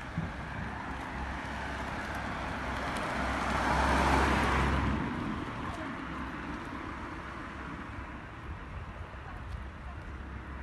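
A car passing by on the street: its tyre and engine noise swells to a peak about four seconds in, then fades away.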